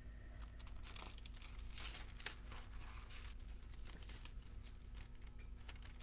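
Rustling and scattered small clicks of things being handled close to the microphone, over a steady low hum.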